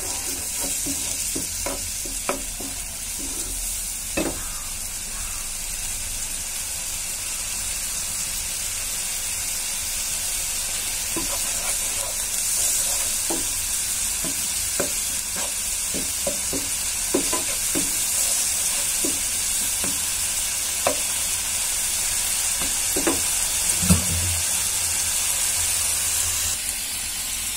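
Onion and spice masala sizzling in a non-stick pan after a splash of water, stirred and scraped with a wooden spatula, with scattered light taps of the spatula against the pan.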